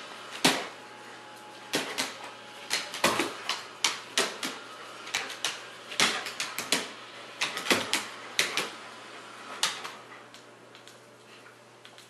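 A dog's claws clicking and scrabbling on a hardwood floor as it darts after a laser dot: irregular sharp taps that come thick and fast, then thin out after about ten seconds.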